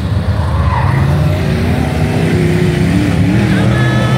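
Dirt-track race cars' engines running loud as the pack circles a clay oval. Their pitch rises and falls as the cars throttle through the turns.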